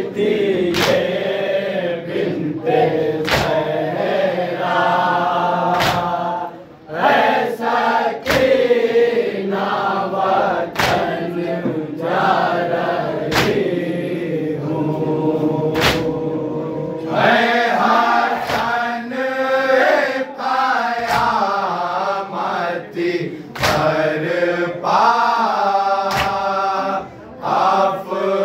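Group of men chanting an Urdu noha (mourning lament) in unison, with sharp slaps of matam (hands striking chests) roughly once a second. The chanting breaks off briefly twice, between lines.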